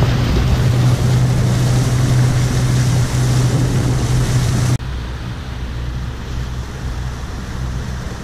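Speedboat engine running at speed with a steady hum, under the rush of water and wind across the hull and microphone. About five seconds in, the sound drops abruptly to a quieter, lower engine hum with water and wind noise.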